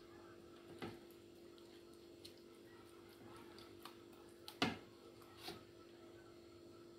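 A few light clicks and knocks from a silicone pastry brush and hands working in a small sauce bowl and over fish on a baking tray, the clearest knock a little past halfway; a low steady hum underneath.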